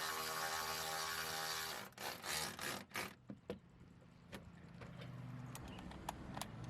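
A small motor runs steadily with a whine for about two seconds and then cuts off suddenly. A few knocks and scattered light metallic clicks follow, the sound of parts and bolts being handled.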